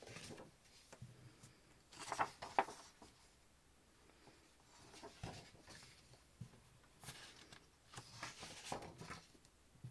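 Sheets of patterned scrapbooking paper rustling as they are lifted, flipped over and laid back down, in several short handling bursts. The loudest is about two seconds in and another cluster comes near the end.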